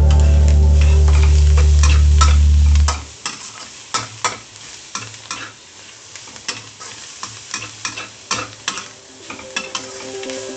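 A loud, low, steady hum fills about the first three seconds and cuts off suddenly. Then comes a metal spatula scraping and clacking irregularly against a stainless steel wok as edamame and salted mustard greens sizzle in it.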